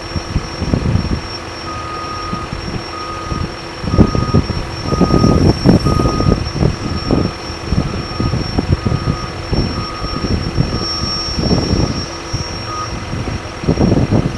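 Vehicle back-up alarm beeping about once a second, over low, uneven engine rumble that surges loudest around four to six seconds in.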